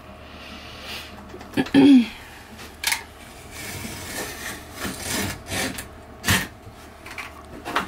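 Hand tool scraping and prying at vinyl floor covering on a wooden subfloor: a series of short, irregular scrapes and rubs, the loudest about two seconds in.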